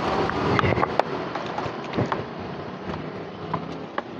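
Steady background ambience with a few scattered light clicks and knocks.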